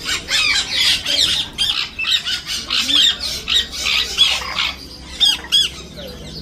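A flock of parrots screeching, with many short shrill calls overlapping, thinning out near the end.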